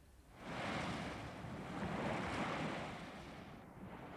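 Sea surf breaking over rocks onto a sandy beach: a wave crashes in about half a second in, then slowly washes back and fades.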